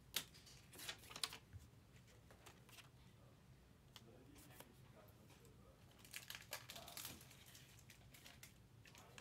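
Faint crinkling and rustling of handled packaging, in a few short bursts near the start and again about six to seven seconds in, over a quiet room.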